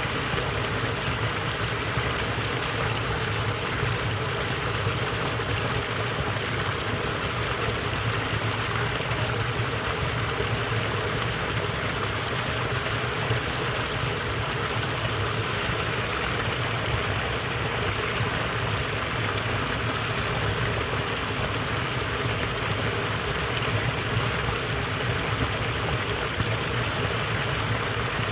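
Small waterfall splashing and rushing steadily, a constant even noise of falling water.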